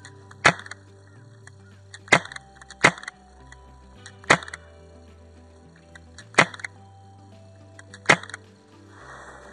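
Six single shots from a Tokyo Marui MK23 gas airsoft pistol: short, sharp cracks at irregular intervals, from under a second to about two seconds apart.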